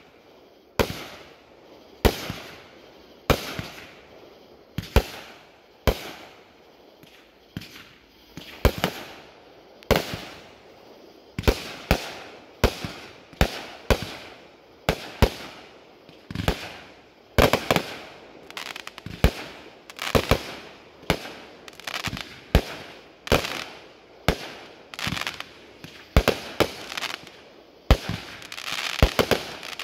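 Aerial fireworks bursting in a long series of sharp bangs, about one a second at first and coming faster from about eleven seconds in, with denser crackling near the end.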